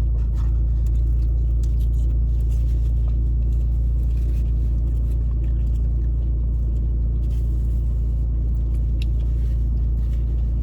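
A steady low rumble with a constant hum that does not change, and faint light ticks over it.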